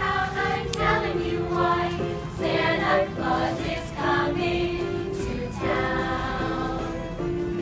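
Christmas music with a group of voices singing slow, held notes.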